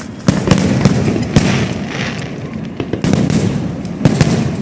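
Aerial fireworks display: a rapid, irregular series of sharp bangs, several close together at times, with crackling between them.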